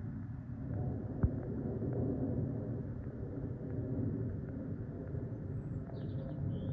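Steady low rumble of aircraft engines, with a sharp click about a second in and a few short bird chirps near the end.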